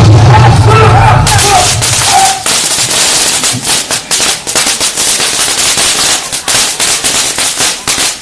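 A long, rapid, irregular string of loud sharp cracks from a string of firecrackers set off as a mock attack. It starts about a second in, just after a shouted voice over a low hum.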